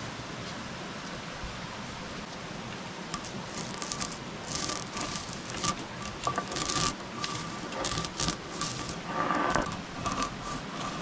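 A steady hiss, then from about three seconds in, irregular crackles, clicks and scrapes, typical of handling cooking gear or a wood fire, with a faint thin tone coming and going.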